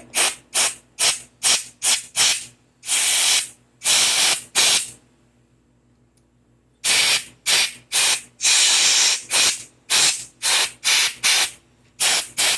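Compressed-air blow gun blowing a rapid series of short hissing blasts through small carburetor jet passages, with a pause of about two seconds midway. The air passes through, showing the jets are clear.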